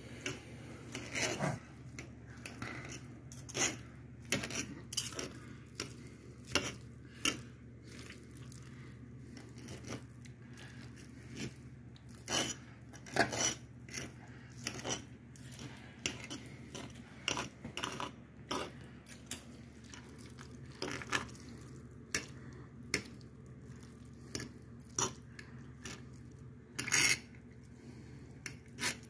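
Two metal forks shredding slow-cooked barbacoa meat on a clear glass cutting board. The tines click and scrape against the glass in short, irregular taps, several a second at times, with one louder clack near the end.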